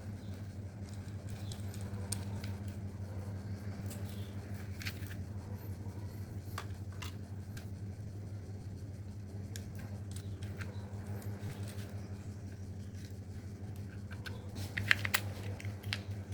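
A steady low hum runs throughout, with scattered light clicks and scrapes of small plastic toys being handled, and a quick run of clicks near the end.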